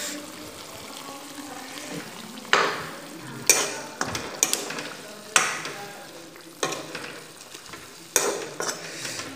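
A steel ladle stirring mutton and potato curry in a kadai, scraping against the pan in about five sharp strokes over the steady sizzle of the simmering gravy.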